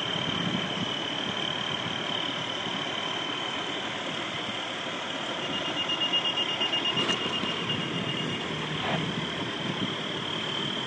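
Tow truck's engine running, with a steady high-pitched tone over it. A rapid beeping comes in for about three seconds midway.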